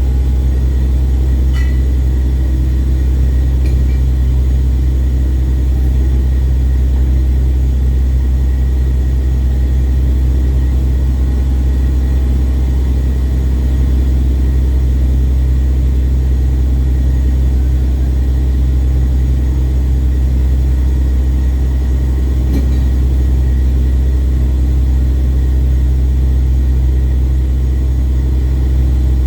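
Ship's engine running steadily: a loud, unchanging deep drone.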